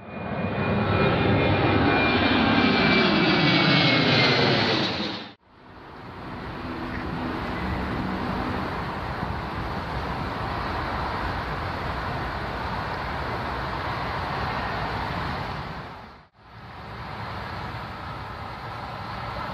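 An aircraft passes close with a slowly falling whine and cuts off abruptly about five seconds in. Then the twin Pratt & Whitney PW150A turboprop engines of a Bombardier Dash 8 Q400 run steadily at takeoff power as it rolls down the runway, broken by another abrupt cut near the end.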